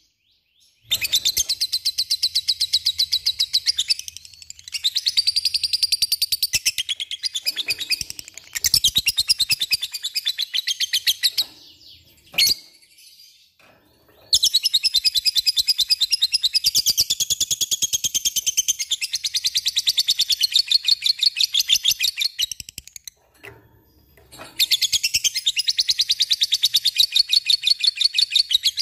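Lovebird's long chattering song, the 'ngekek' that lovebird keepers prize: runs of rapid, evenly repeated high notes in five bouts, the longest about eight seconds, with short pauses between.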